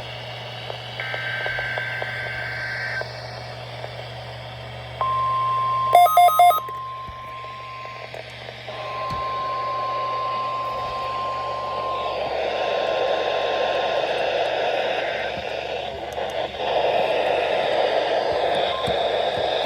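NOAA Weather Radio weekly test coming through a weather radio receiver over steady static hiss. A steady 1050 Hz warning alarm tone sounds for several seconds, broken once briefly. Three short loud beeps come near its start, and the static grows louder after the tone ends.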